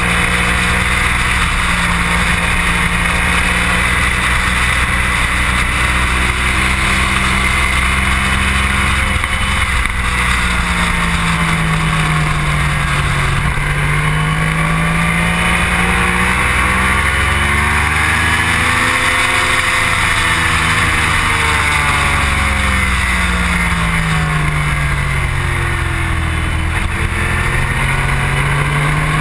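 Sport motorcycle engine running hard on a race track, heard from the bike under heavy wind rush. The engine pitch falls into each of two corners and climbs again on the way out.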